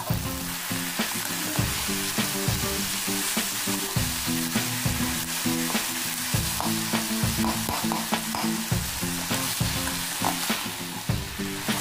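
Moringa (sahjan) leaves and potato chunks sizzling as they fry in a steel kadhai, stirred with a slotted steel spatula that scrapes and taps against the pan again and again.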